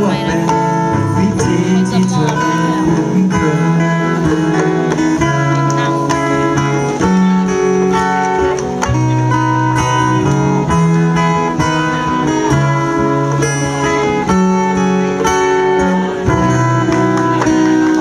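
Live band playing an instrumental passage of a slow pop song: acoustic guitars and percussion under a held melody line.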